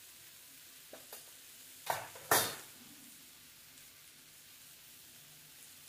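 Chana frying in a metal kadai with a faint steady sizzle. A steel spoon clinks and scrapes against the pan: two light clicks about a second in, then two louder scrapes near two seconds in, the second one the loudest.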